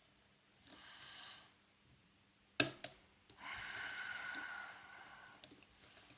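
Close-up breathing, two soft breaths, over the quiet picking of a Yale euro cylinder lock. Two sharp clicks about two and a half seconds in come from the pick working the pins just before the core turns.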